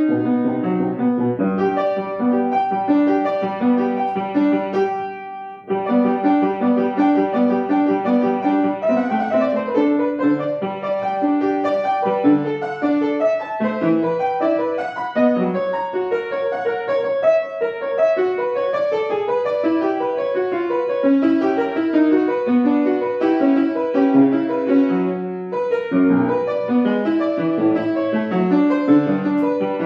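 Solo piano playing a quick, busy run of notes, with a brief break about five seconds in before the playing resumes.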